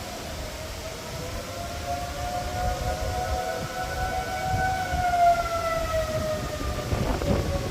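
Outdoor tornado warning siren wailing, its pitch rising slightly and then falling away over the last couple of seconds, over a low, uneven rumble.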